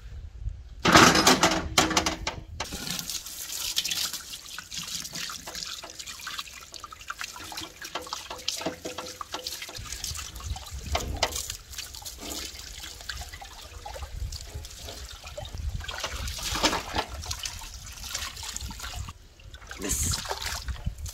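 Water from a garden hose running and splashing onto skinned goat carcasses in a large aluminium cooking pot as they are rinsed by hand. About a second in there is a loud clatter as a carcass goes into the pot.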